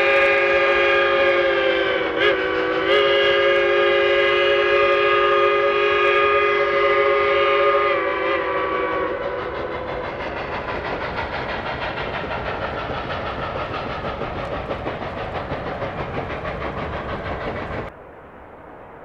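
K-28 narrow-gauge steam locomotive's whistle blowing a long blast of several notes at once, briefly broken twice about two seconds in, dying away about eight seconds in. The train's running noise carries on more quietly after it, and the sound drops sharply near the end.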